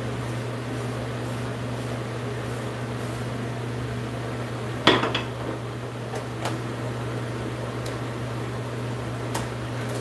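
One sharp knock of a hard object about halfway through, followed by a few faint clicks, over a steady low hum.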